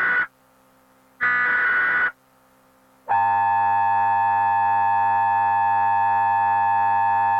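Emergency Alert System broadcast tones. The tail of one buzzing digital header burst is followed about a second in by a second burst lasting about a second. About three seconds in, the steady two-tone attention signal starts and holds.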